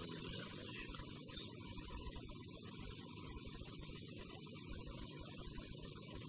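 Steady low electrical hum with hiss from the microphone and sound system.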